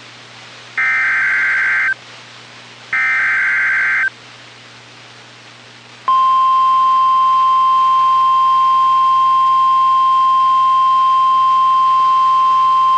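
NOAA Weather Radio EAS alert: two bursts of the SAME digital header data, each about a second long, then a gap of about two seconds, then the steady 1050 Hz warning alarm tone starting about six seconds in and holding. The alarm tone signals that a warning follows, here a severe thunderstorm warning.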